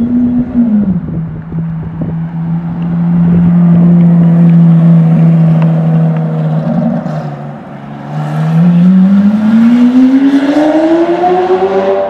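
Lamborghini Aventador's V12 engine running loud at low, steady revs as the car pulls past. A little before the end of that stretch it eases off briefly, then the revs climb steadily in pitch as it accelerates away.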